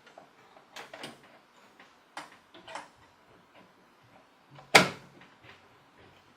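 A graphics card being fitted into a computer case's PCIe x16 slot: a few light clicks and knocks of the card and its metal bracket against the case, then one much louder sharp click or knock about five seconds in as it is pushed home.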